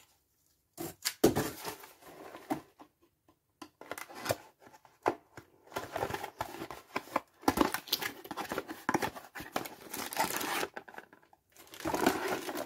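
Small cardboard box being opened and handled by hand: irregular scraping, rubbing and tearing of cardboard flaps, then a plastic bag crinkling near the end as the power adapter inside is pulled out.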